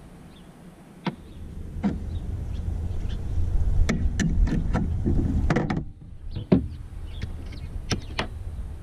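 Irregular light clicks and knocks of hand tools and metal parts being handled at the engine, over a low rumble that swells about a second in and drops away near six seconds.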